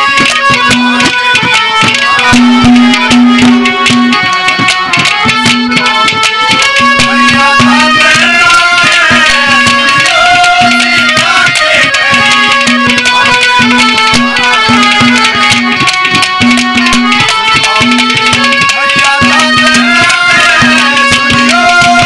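Live Haryanvi ragni folk music with no singing: a hand drum played in a fast, dense rhythm under a melody that rises and falls, over a low note sounded again and again in short held stretches.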